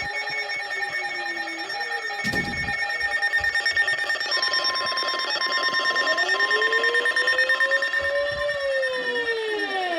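Electronic emergency alert tones for a tornado warning: several steady and beeping alarm tones sounding together, with gliding pitches that rise slowly and bend downward near the end, and a short thump about two seconds in.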